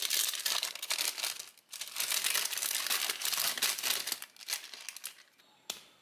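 Paper wrapping of a chocolate bar crinkling and rustling as it is peeled open and pulled off, with a brief pause about a second and a half in. The crinkling thins out after about four seconds, and a single sharp click comes near the end.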